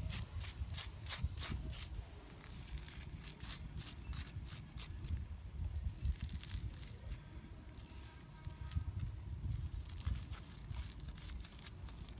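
Crisp crackling and scraping as bamboo sticks break and peel the charred, crusted skin off fire-grilled fish. A quick run of sharp crackles fills the first half, then they come more sparsely, over a steady low rumble.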